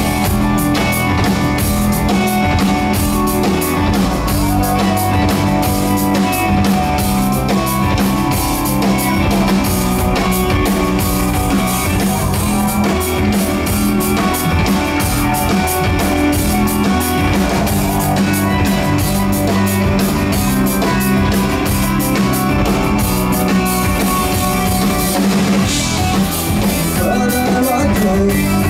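Progressive rock band playing live: a drum kit, electric guitar, bass and keyboards in a full, steady passage of a song.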